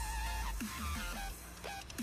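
Electronic music: deep bass notes that repeatedly slide down in pitch under a bending synth melody.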